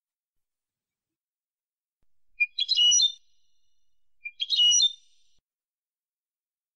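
European goldfinch singing: two short phrases of quick, high notes, about two seconds apart, the first starting about two seconds in.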